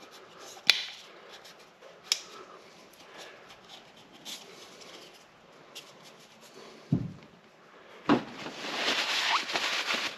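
Handling noises from a plastic diesel fuel filter canister as a new O-ring is worked into its groove: a few sharp clicks and light ticks, then a dull knock as the canister is set down on the bench, followed by about two seconds of rustling paper towel.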